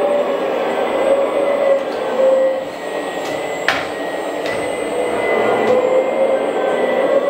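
Electric hydraulic pump and valves of a 1/14 Kabolite K970-200 RC front-shovel excavator whining steadily as the boom and bucket move, the pitch wavering with the load, with one sharp click about halfway through.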